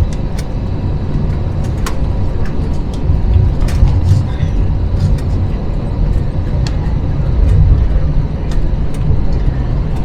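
Cabin noise inside an Airbus A321: a loud, heavy low rumble with scattered light rattles and clicks from the cabin fittings.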